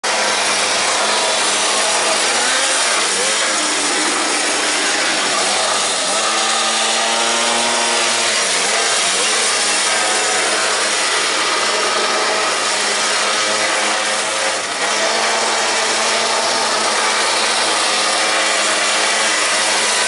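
Small gas engine of a quarter-scale RC pickup truck running hard with a rasping buzz, its pitch rising and falling as the throttle is worked about six to nine seconds in.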